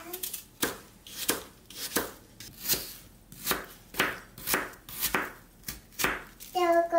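Kitchen knife chopping a peeled apple into cubes on a cutting board: about ten sharp knocks of the blade on the board, roughly one every two-thirds of a second. A short high voice cuts in near the end.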